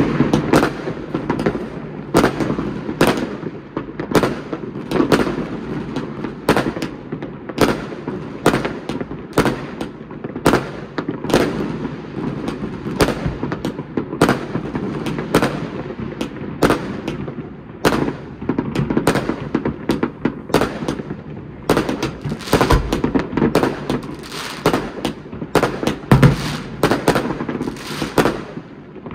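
Many aerial fireworks going off all around, near and far: a dense, irregular run of bangs and pops with no pause, some close bursts louder than the rest.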